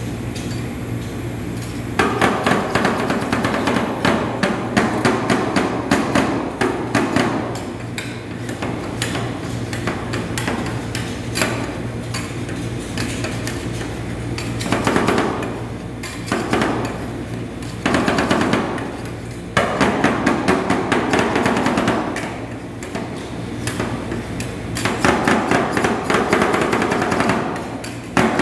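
Two metal spatulas chopping rapidly against the steel cold plate of a rolled ice cream machine, mashing berries into the freezing cream base, in bouts of fast tapping with short pauses. A steady low machine hum runs underneath and is heard alone for the first couple of seconds.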